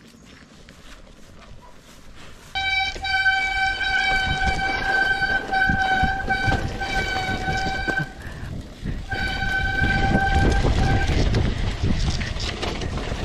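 Mountain bike brakes squealing on a dirt-trail descent: one steady high-pitched note holds for about five seconds, stops briefly, then comes back for about two more. Under it is a loud rumble of tyres over rough ground and wind, which starts a couple of seconds in.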